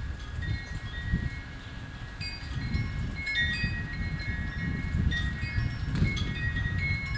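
Wind chimes ringing, many overlapping tones struck at irregular moments, over a low rumble of wind on the microphone.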